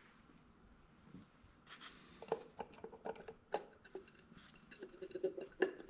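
Faint small clicks and rubbing of the plastic oil filter housing cap on a Ford Fusion Sport being wiggled by hand to seat it into the filter housing. The clicks start about two seconds in, after near silence.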